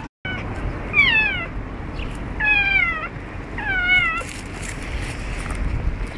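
Domestic cat giving three squeaky meows, each falling in pitch, about a second and a half apart, the first about a second in.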